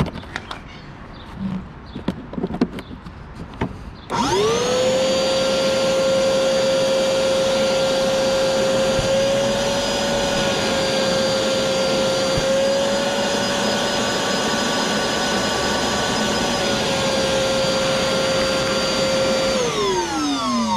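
Ridgid wet/dry shop vac on its original full-size hose, switched on about four seconds in after a few handling knocks. It runs loud and steady with a slight shift in pitch midway while its suction holds a foam pad against the nozzle. Near the end it is switched off and the motor winds down with falling pitch.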